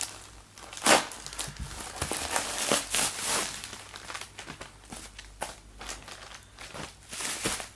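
Plastic mailing bag and bubble wrap crinkling and rustling as a parcel is slit open and the bubble-wrapped package is pulled out and handled, uneven, with a few sharper crackles.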